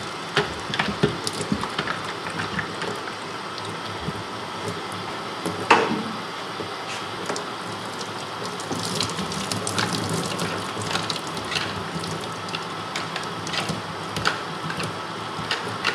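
Hot water running from a tap into a utility sink, splashing over and through a bear skull as brain matter is rinsed out of its cavity. Scattered clicks and knocks from handling, with one louder sharp sound about six seconds in.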